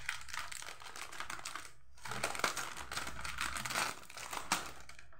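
Plastic snack packet crinkling and crackling as it is snipped open with scissors and pulled apart by hand.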